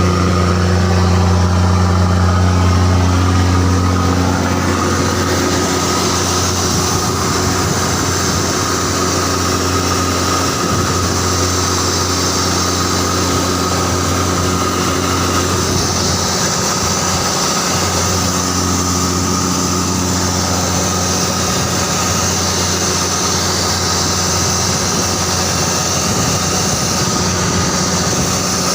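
A boat's engine running steadily, its loudness dropping slightly about four seconds in.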